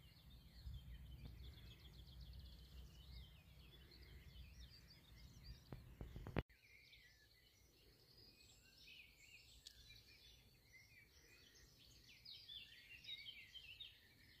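Faint birdsong: many small birds chirping and twittering in open countryside, with a low wind rumble on the microphone in the first half that stops abruptly at a sharp click about six seconds in.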